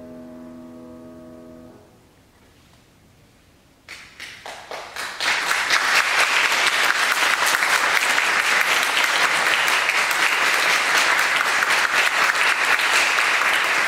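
The final chord of a classical piece on a concert grand piano, held and then released about two seconds in. After a short hush, a few claps start about four seconds in and quickly swell into steady audience applause.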